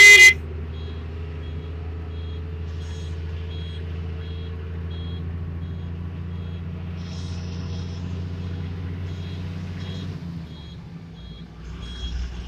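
Bus engine running steadily under way, with a short high electronic beep repeating about twice a second. A loud blast of a vehicle horn cuts off just after the start, and the engine note drops about ten seconds in.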